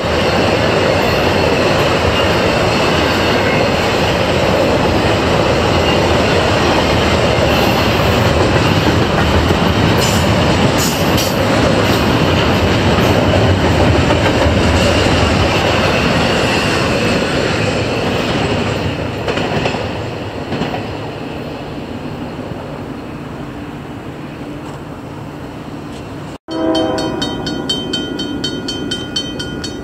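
Double-stack intermodal freight cars rolling past, the wheels clacking over the rail joints, growing quieter over the last seconds as the train's tail goes by. After a sudden break near the end comes a rhythmic ringing from a grade-crossing bell.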